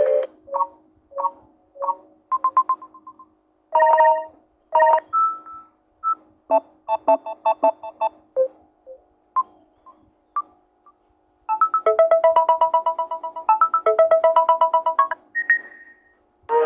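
Samsung tablet's built-in notification sounds played one after another: a string of short electronic chimes and blips separated by brief silences, then a longer repeating melodic jingle from about halfway through, ending with a short high tone.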